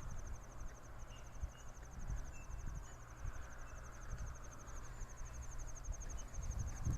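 An insect chirping in a steady, rapid high-pitched pulse over a low, uneven rumble, with a few faint short chirps in between.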